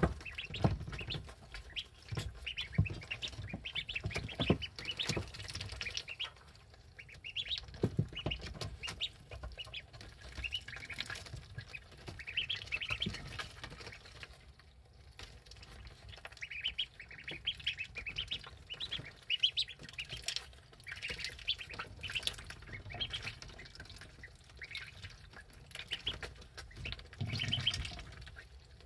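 Eleven-day-old ducklings peeping in repeated runs of short high chirps, with scattered clicks and knocks as they dabble their bills in a shallow plastic water dish.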